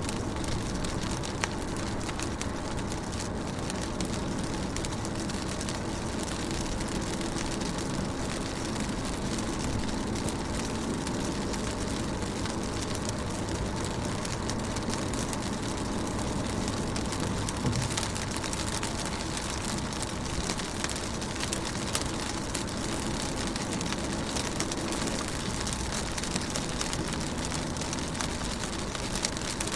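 Rain falling on a car's windows: a steady wash of water with many small drop hits over a low, even rumble.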